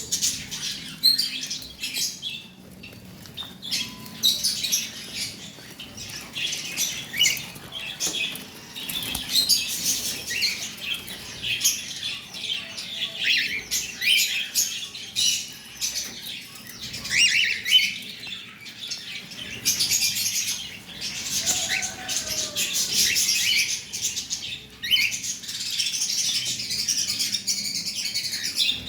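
Pet cockatiels chirping and chattering: many short, high calls overlapping one another, denser in the second half.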